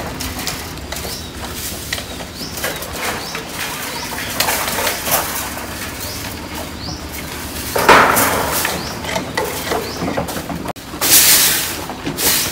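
Birds chirping and cooing in the background with scattered rustling and scraping. A loud scratchy scrape comes about two-thirds through, and near the end a straw broom sweeps across wooden floorboards in loud scratchy swishes.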